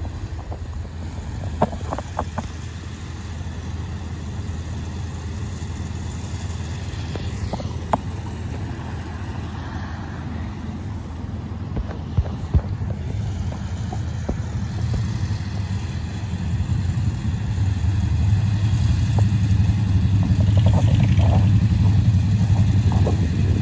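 Engine of a rail-mounted track maintenance machine running as it travels along the track toward the listener, its steady low hum growing louder over the last several seconds. A few sharp knocks are heard along the way.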